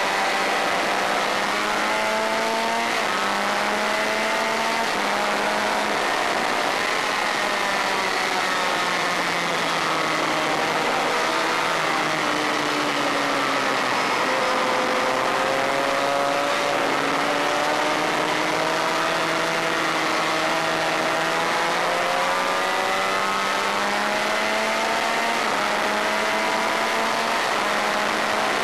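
Honda VFR400 V4 race-bike engine heard onboard at high revs. The pitch falls as the rider eases off and downshifts into a slower corner, then climbs again in steps through the upshifts back to full throttle.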